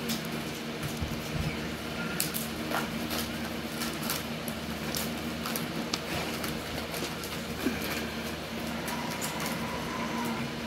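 Alaskan Klee Kai puppies playing: scattered clicks and rustles of paws scrabbling on pellet litter and a crinkling plastic bag being nosed and chewed, over a steady low hum.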